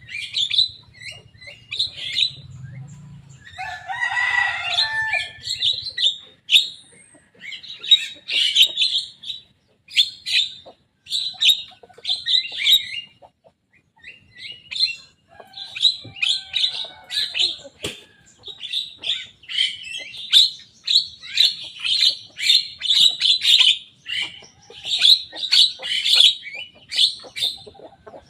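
Young Javan myna singing busily: rapid series of short, sharp chattering calls, with one lower, harsher call about four seconds in.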